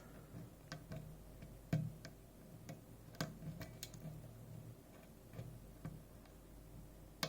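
Faint, irregular small clicks and ticks of a lock pick and tension wrench working the pins inside a Robur safe deposit lock, pushing pins up toward the shear line.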